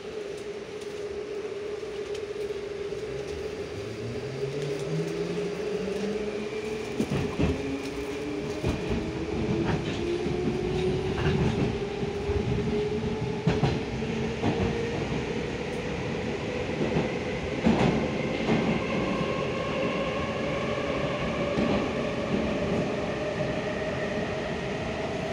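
81-725.1 "Baltiets" metro train pulling away and accelerating, heard from inside the car. The traction motors' whine climbs steadily in pitch, several tones rising together, over the rumble of the running gear, with rail-joint clicks from about seven seconds in.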